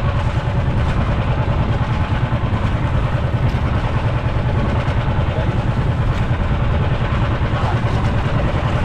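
Motorised outrigger boat's (bangka's) engine running steadily with the boat under way, a constant low drone.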